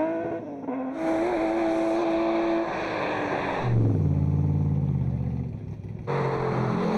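Classic race car engines running hard in quick succession: first a high, steady note held at high revs, then about four seconds in an abrupt change to a much deeper engine note, and near the end another sudden switch to a different engine revving.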